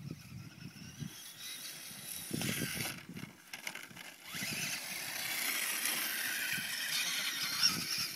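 Venom VMX 450 RC dirt bike's brushless electric motor whining as it drives over grass, the high whine wavering up and down with the throttle and getting louder from about halfway through. Low irregular rustling runs underneath.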